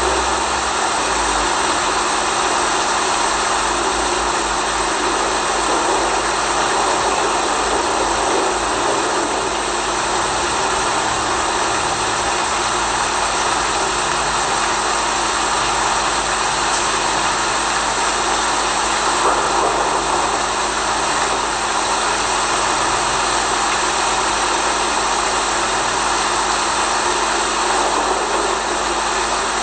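Steady rushing noise with a constant low hum under it, unchanging throughout.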